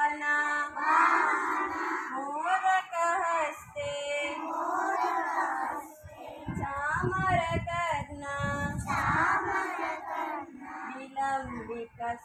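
A group of young children singing together in unison, in short sung phrases with brief pauses between them.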